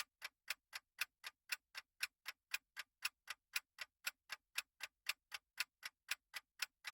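Countdown-timer sound effect of a ticking clock: crisp, evenly spaced ticks, about four a second.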